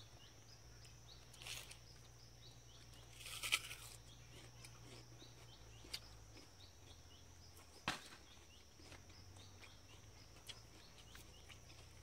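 Rustling and tearing of a banana plant's stem as its white inner core is pulled out, loudest about three and a half seconds in, with a couple of sharp snaps later. Under it runs a steady high insect drone with small repeated chirps.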